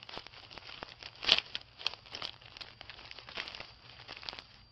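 Irregular crinkling and crackling, like paper or dry material being crumpled, with scattered sharp clicks.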